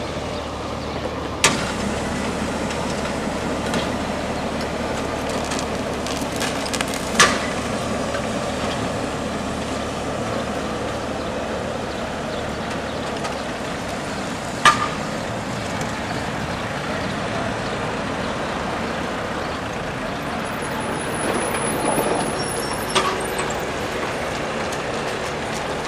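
Tatra tram running over street track with a steady rumbling noise, broken three times by a sharp metallic clack of its wheels over rail joints and crossings. Road traffic swells briefly near the end.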